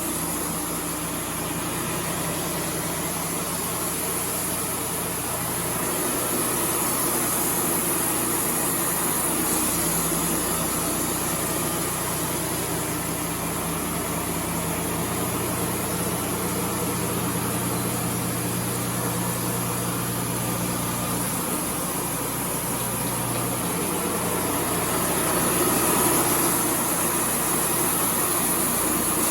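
Wood-Mizer LT35 band sawmill running steadily while sawing a cedar log, its engine drone under a constant high hiss, swelling slightly in level a couple of times.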